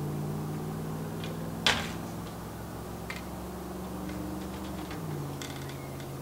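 A steady low hum that drops slightly in pitch near the end, with three sharp clicks spread through it.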